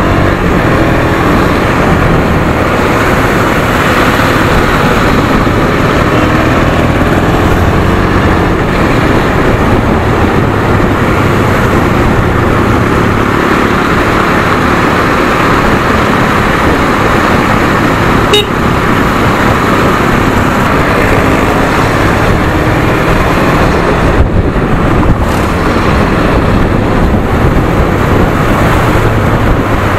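Riding a KTM Duke 250 motorcycle in city traffic: steady wind and road rush over the bike's microphone with the single-cylinder engine running underneath and other traffic around. A brief sharp click about 18 seconds in.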